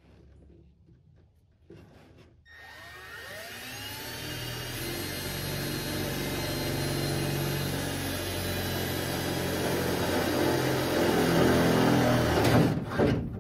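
Cordless drill spinning up about two seconds in and boring a starter hole through the sheet-metal skin of a van's sliding door. It grows louder as the bit cuts, then stops and starts a few times near the end.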